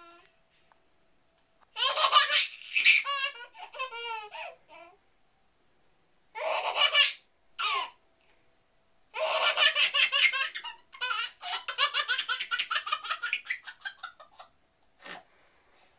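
Baby laughter: high-pitched infant laughing in several bursts with short pauses between, the longest run in the second half.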